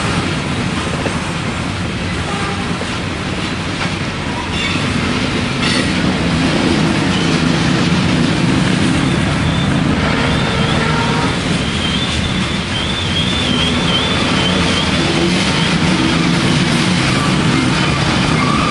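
Freight train of coal hopper cars rolling past: a steady rumble of steel wheels on rail with a few clicks over rail joints. From about nine seconds in, a thin, wavering high-pitched wheel squeal joins in, the flanges grinding through a tight curve.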